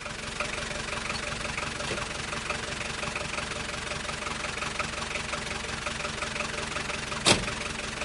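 Car engine running steadily at idle, fading in at the start. A single sharp click about seven seconds in.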